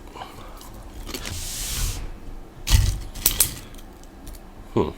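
A crinkly snack bag rustling about a second in, then a few sharp crunches of pork rinds.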